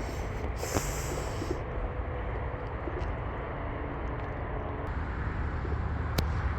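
Steady low background rumble and noise, with a few faint clicks.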